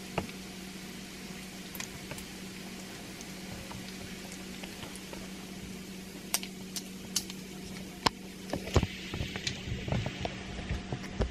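Chopped bacon frying in a stainless steel skillet: a steady sizzle with scattered sharp pops of spitting fat. A few louder knocks come near the end.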